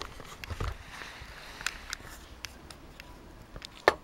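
Handling noise from a camera being moved: scattered light clicks and soft rustling, with a sharper knock near the end.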